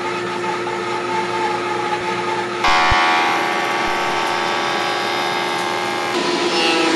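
Woodworking machines running with a steady whine: a bandsaw, then from about two and a half seconds in a louder jointer cutting along the edge of a board.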